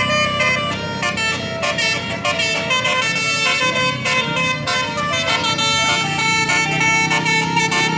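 Tour bus's telolet multi-tone horn playing a quick tune of changing notes, over a running engine.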